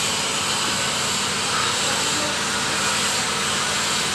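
A lathe running with a steady hum and hiss at an even level.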